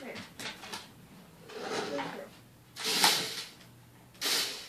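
Two dogs playing on a hardwood floor: scuffling and a few short breathy bursts, the loudest about three seconds in.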